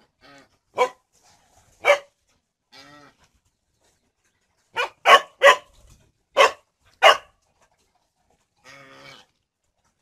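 A dog barking: two single sharp barks, then a quick run of five about five seconds in. Fainter, longer animal calls come between the barks.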